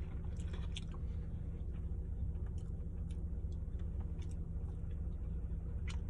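A person chewing food with soft, wet mouth clicks and smacks scattered throughout, over a steady low hum.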